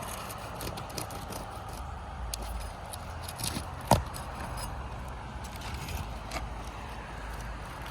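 A roof snake shingle bar prying under asphalt 3-tab shingles to break their sealant strips: scattered scrapes and small clicks, with one sharp crack about four seconds in.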